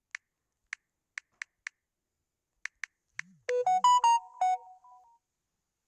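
Touch-click ticks of a phone's on-screen number keypad, about eight quick irregular taps as a phone number is typed in, then about three and a half seconds in a short, louder electronic jingle of several quick pitched notes, like a phone notification tone.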